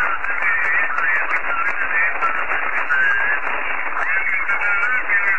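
Ham radio transceiver's receiver audio: a steady hiss cut off sharply above about 3 kHz, with faint, unintelligible voices wavering through the noise.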